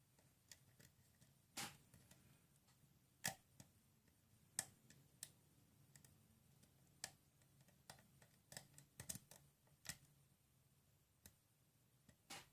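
Faint, irregular small metallic clicks of a lock pick working the pins of a Schlage pin-tumbler challenge lock held under tension, pins clicking as they are pushed and set.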